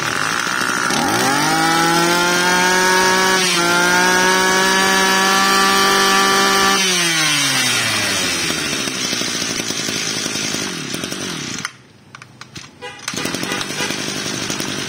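Kioritz Echo 2501 25cc two-stroke brush-cutter engine, just pull-started, revved up to high speed and held there, with a brief dip about three and a half seconds in. About seven seconds in it falls back to a lower speed. Near the twelve-second mark it drops out briefly, then is running again.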